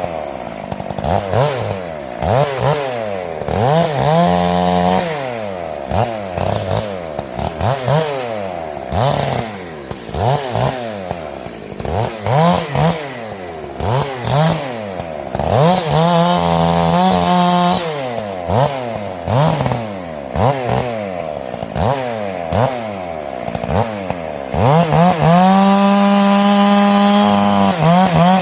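Stihl MS 461 two-stroke chainsaw with a home-made bark box muffler cutting oak, its engine speed rising and falling over and over as it loads in the cut and revs free. Near the end it holds a steady high rev for a couple of seconds.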